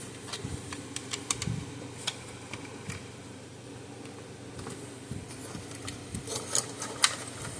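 Scattered light clicks and taps of small parts and tools being handled on a workbench, with a few sharper clicks near the end, over a steady low hum.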